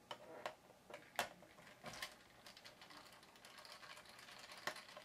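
Small screwdriver loosening the screw that holds a laptop's plastic RAM cover plate: a few faint clicks, a light rasping stretch, and a sharper click near the end.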